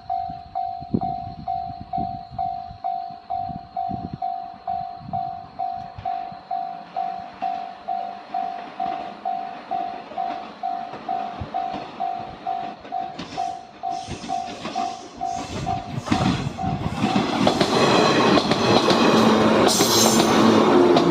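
Japanese level-crossing warning bell ringing steadily, about two strikes a second. Two-thirds of the way through, a JR 105 series electric train arrives: wheel clacks over the rail joints come first, then the loud noise of the train passing over the crossing, which drowns out the bell.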